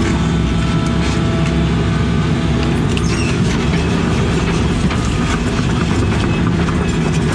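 Case CX80 excavator's diesel engine running steadily, with scattered clicks and knocks over it.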